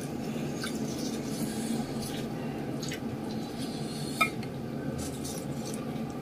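Hands picking fried tofu and fresh leafy greens from a stone mortar of sambal, with faint crackles and rustles over a steady low hum. A short clink about four seconds in.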